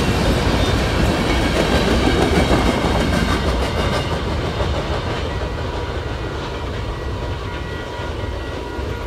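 The last cars of a long freight train rolling through a grade crossing, wheels clacking on the rails. The rumble fades gradually after about four seconds as the end of the train clears. As it fades, steady high ringing tones from the crossing signal's bell come through.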